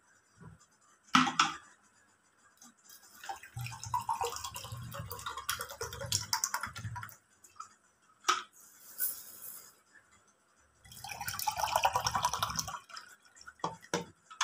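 Water poured from a plastic bottle into a steel tumbler, in two pours of a few seconds each, with a few sharp clinks of steel vessels in between.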